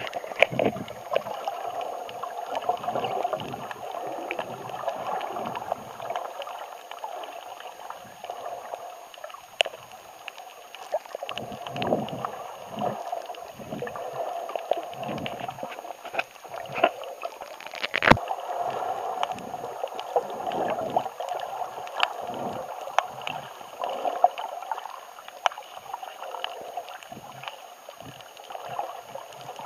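Underwater sound picked up by a camera held below the surface while snorkelling: a muffled, steady rush of moving water with irregular swells and scattered sharp clicks, the loudest about 18 seconds in.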